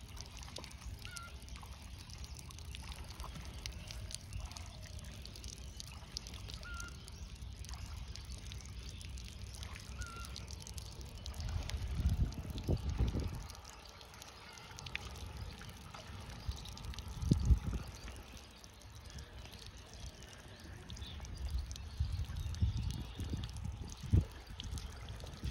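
River water sloshing and trickling around a person wading knee-deep with a wet cast net. A few short bird chirps come in the first half, and louder low rumbles come about halfway through and again near the end.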